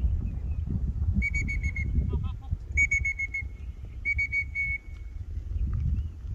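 Common kestrel calling in three quick bursts of short, sharp repeated notes, five or six to a burst, over a steady low rumble of wind on the microphone.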